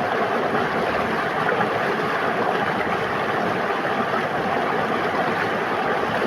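River water flowing and splashing in a steady, even rush.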